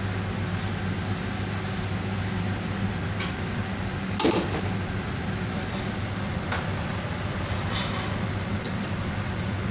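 Steady low hum of kitchen equipment, with light clinks and scrapes of a bowl and ladle working rice in an aluminium kadai; the loudest, a short ringing metal clink, comes about four seconds in.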